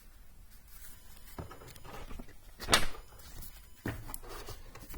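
Books being handled and set down: soft rustling and light knocks, with one sharper, louder knock about two and a half seconds in.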